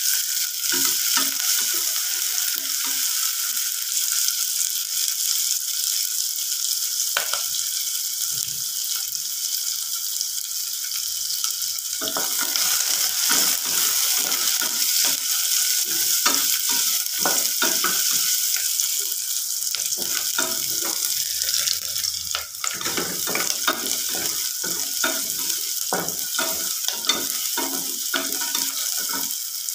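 Sliced onions sizzling in hot oil in a stainless steel pressure cooker, stirred with a wooden spatula that scrapes and knocks against the pot. The stirring strokes come thick and fast from about halfway through.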